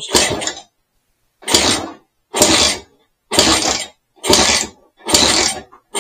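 A freshly rebuilt BSA Bantam B175 175cc two-stroke single being kicked over with its kickstart, about seven kicks roughly one a second, each a short mechanical clatter as the crank spins. The engine does not fire.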